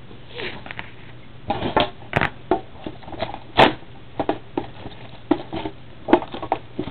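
Clear plastic card packaging being handled and set down on a table: a run of irregular clicks, clacks and crinkles that starts about half a second in.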